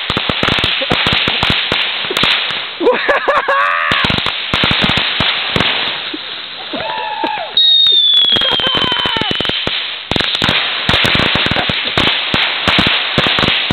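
A long run of firecrackers going off in rapid, uneven succession, a dense crackle of sharp bangs. A short whistle falls in pitch a little past halfway, and voices shout over the bangs about 3 seconds in and again near 7 seconds.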